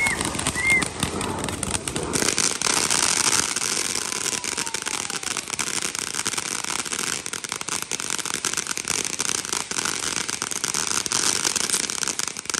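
Fireworks crackling: a dense, rapid run of small pops over a fizzing hiss, growing thicker and louder about two seconds in.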